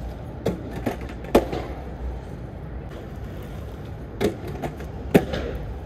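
Aggressive inline skates rolling on concrete with sharp clacks of skate impacts: three in the first second and a half, then three more near the end as the skater jumps at a concrete ledge in a trick attempt that is not yet landed.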